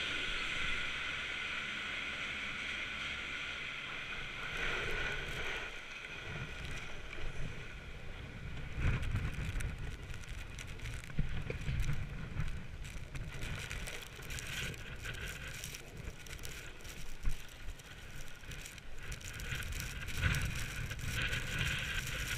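Steady hum and whine of chairlift machinery at first, fading out. Then a ski bike's skis scrape and chatter over hard, wind-packed snow, with uneven knocks from bumps and wind on the microphone.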